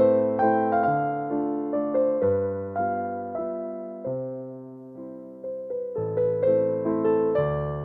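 Background music: a gentle electric piano melody with chords, notes struck and decaying, fading softer around five seconds in before picking up again.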